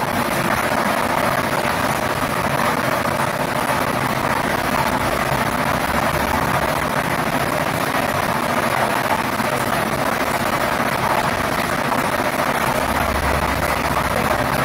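Air-mix lottery drawing machine running: its blower makes a steady rushing noise as it tosses the numbered balls around the clear acrylic chamber.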